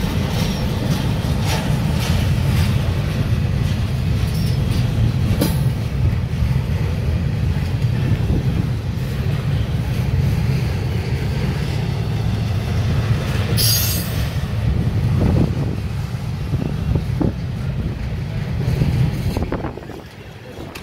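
Double-stack intermodal well cars of a CSX freight train rolling past close by: a steady low rumble with scattered clicks of wheels over the rail joints. There is a brief high-pitched noise about two thirds of the way through, and the sound drops off sharply near the end.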